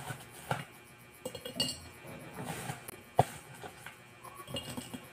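Ice being dropped into a glass mason-jar mug, a run of irregular clinks of ice against the glass and against other ice, the sharpest about three seconds in.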